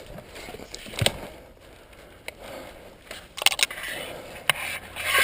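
Crunching and scraping of someone moving through brush and dry ground cover, broken by several sharp clicks or snaps, including a quick cluster of them about three and a half seconds in.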